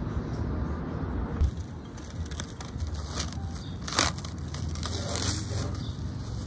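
Plastic cling film crinkling and crackling as it is peeled off a glass bowl. The crackles start about a second and a half in and come irregularly, with one sharper crackle about four seconds in.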